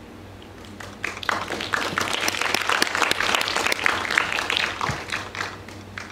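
Audience applauding at the end of a piece of music: the clapping starts about a second in, builds, and dies away near the end.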